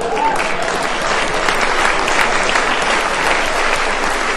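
Live audience applauding, a dense steady patter of many hands clapping.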